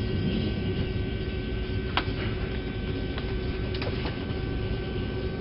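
Steady hum and hiss of an airliner cabin, with a few faint light clicks near the middle.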